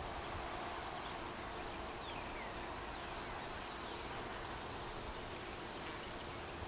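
Steady buzzing of many honeybees around an opened hive.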